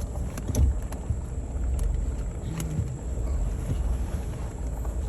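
Truck driving, heard from inside the cab: a steady low rumble of engine and road, with a few light knocks and rattles in the first few seconds.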